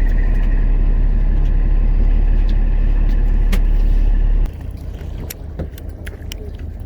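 Steady low engine rumble that cuts off abruptly about four and a half seconds in, leaving a quieter rumble with scattered clicks.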